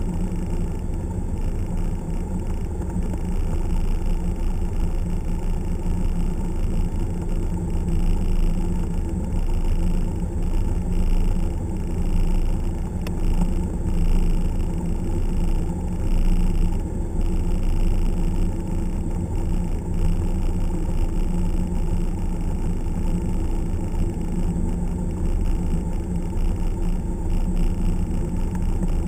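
Single-engine piston airplane's engine and propeller running steadily at low taxi power, a continuous low rumble heard from inside the cockpit.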